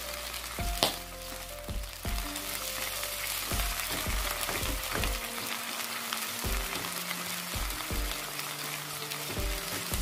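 Chunks of tuna sizzling in bubbling oil in a wok, with a spatula stirring and pressing through them. There is a sharp click about a second in.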